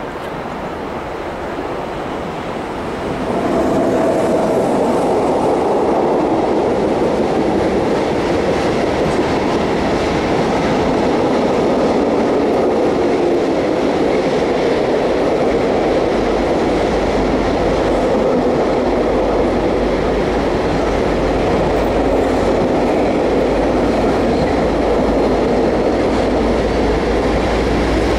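A freight train rolling past, its wheels clacking steadily over the rail joints. From about halfway the deep drone of an approaching ST44 diesel locomotive builds underneath. It is a Soviet-built two-stroke V12 working hard under load.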